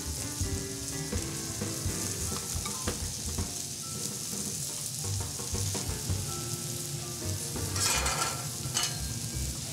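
Steak, garlic cloves and vegetables sizzling on a hot flat-top griddle, a steady hiss of frying. It flares louder briefly about eight seconds in.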